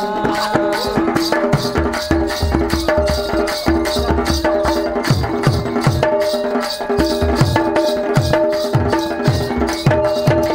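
Instrumental interlude of Danda Nrutya folk accompaniment with no singing. Low drum strokes drop in pitch after each hit over a fast, even pulse of high percussion strokes, while a melody instrument holds steady notes.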